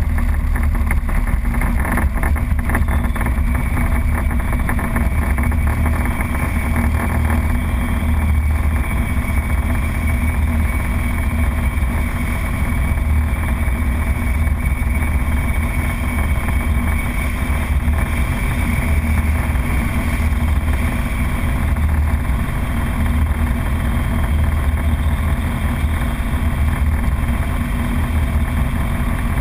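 Formula Vauxhall Junior single-seater's engine idling steadily, heard close up from a camera mounted on the car.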